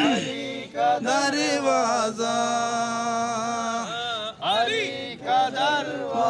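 A man chanting devotional verse unaccompanied, holding long notes with wavering, ornamented turns, broken by a few short breaths.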